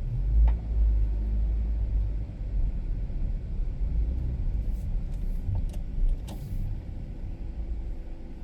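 Car driving in town: a steady low rumble of engine and road noise, with a few faint clicks.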